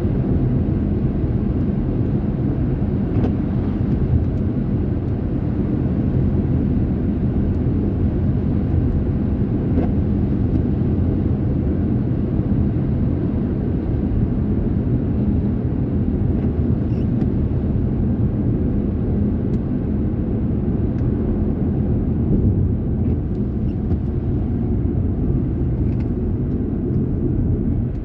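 Heavy rain falling steadily. It is a dense, unbroken low rumble with a few faint ticks.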